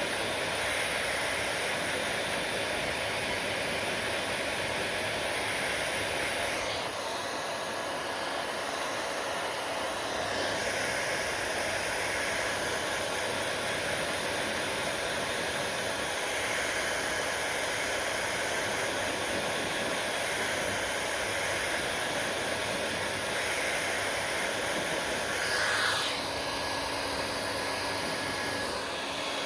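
Hair dryer blowing steadily, a continuous rushing hiss of air and motor. Its tone shifts a few times, with a brief swell in loudness near the end.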